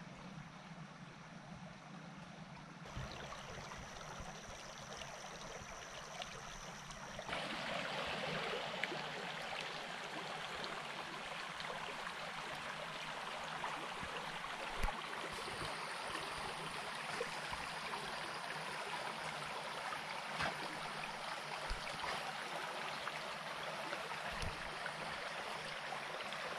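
Shallow creek running over a pebbly bed: a steady babble of flowing water that gets louder about seven seconds in, with an occasional small knock.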